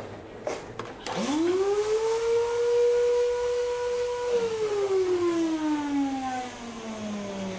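A siren winds up to a steady wail, holds it for about three seconds, then slowly winds down in pitch.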